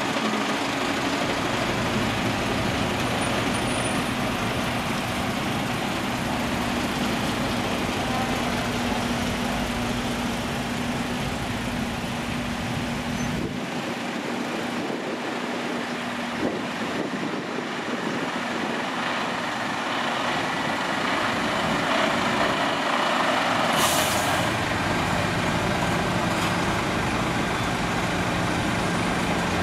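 Heavy diesel tractor units driving slowly past, first a DAF and then a Scania S-series, with a steady engine drone and tyre noise. Near the end there is one short, sharp hiss of air from a truck's air brakes.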